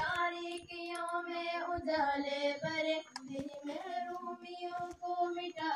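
Children singing a patriotic Urdu song together in held, sliding notes, amplified through a loudspeaker.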